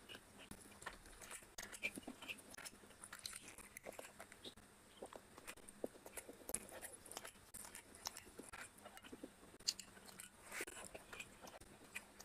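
Close-miked wet eating sounds, heard as irregular soft smacks and clicks: fingers squishing biryani rice and chicken curry together, and chewing.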